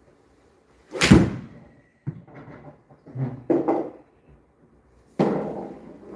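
Golf balls struck at an indoor practice range: a sharp club-on-ball smack about a second in and another near the end, each with a short fading thud as the ball meets the screen, and smaller knocks in between.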